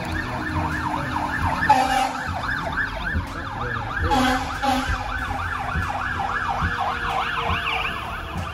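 Emergency vehicle siren close by in a fast yelp, its pitch sweeping up and down about four times a second.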